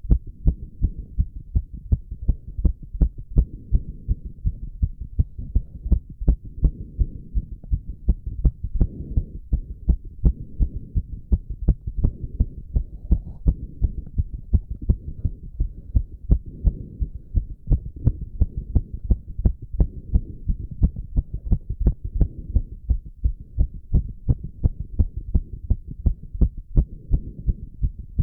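A man's heart beating fast and hard after exercise, picked up close against the chest: a quick, regular run of strong thumps, with the low rush of heavy breathing swelling and fading underneath every few seconds.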